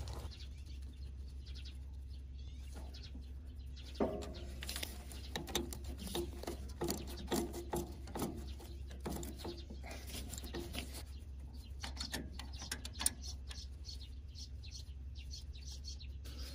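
Ford 2N front-mount distributor being fitted back onto the engine by hand: an irregular run of small metal clicks and knocks starting about four seconds in and dying away a few seconds before the end.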